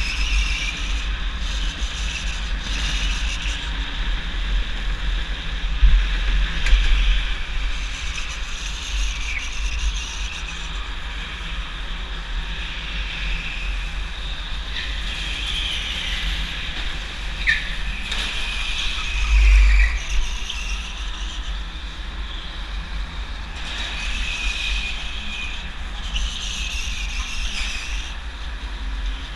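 A go-kart being driven at speed, heard from its onboard camera: a steady heavy rumble and rushing noise, with intermittent wavering high squeals.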